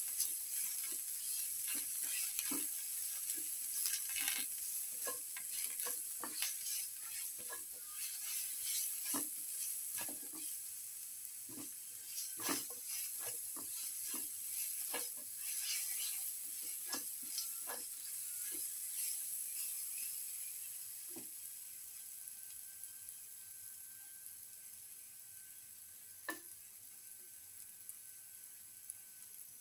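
Shallots, garlic paste and green chili sizzling in hot oil in a frying pan, with a spatula scraping and tapping against the pan as they are stirred. About two-thirds of the way in the stirring stops and the sizzle dies down, with one more knock of the spatula near the end.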